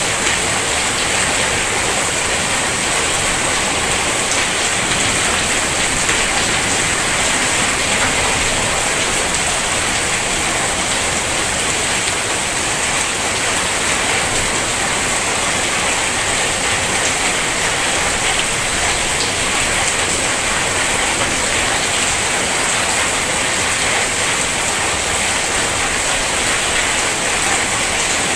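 Heavy rain falling in a steady, dense hiss with no breaks.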